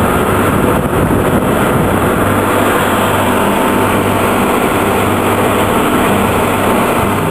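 A boat's engine running steadily at speed, with water rushing and spraying past the hull.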